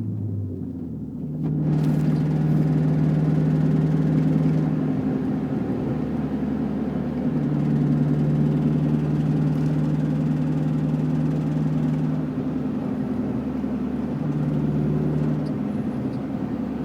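SRT car's engine running at low rpm with the ticking noise that shows up under 2,000 rpm. The engine note gets louder about a second and a half in and swells and eases a few times.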